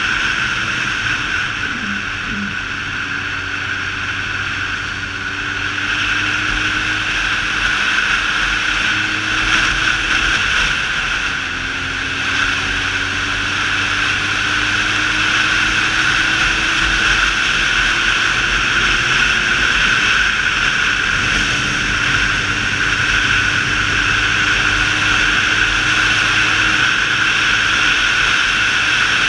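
Motorcycle engine running at road speed under a steady rush of wind on the camera. The engine's pitch climbs slowly several times, dropping back about eleven seconds in and again near twenty seconds.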